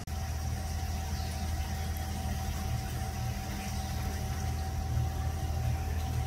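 Steady low hum of an idling engine, with a thin steady high tone above it.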